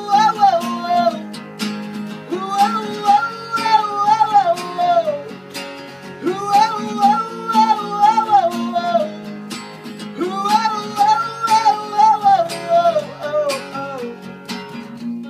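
Live band playing: a male voice sings four long drawn-out phrases, each falling away at its end, over strummed acoustic guitar, electric guitar and bass guitar. The singing stops near the end while the guitars carry on.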